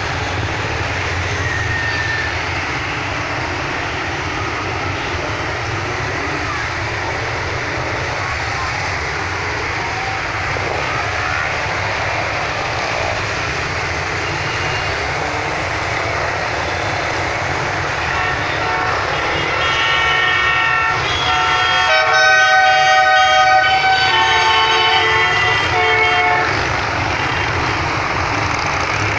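Motorcycle engines running in a steady stream as a parade of motorcycles rides past. About two-thirds of the way in, a horn sounds a run of held notes of changing pitch for several seconds, the loudest part.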